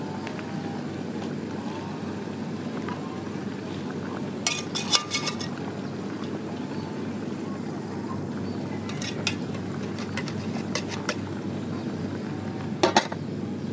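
Metal spoon and tongs clinking against a metal cooking pot in short clusters, about four and a half seconds in, again around nine to eleven seconds, and near the end, over a steady low background noise.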